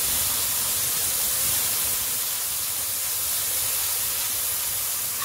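Water hissing and steaming as it hits hot oil and golden-fried onions in a karahi, added to soften the onions; the hiss eases slowly.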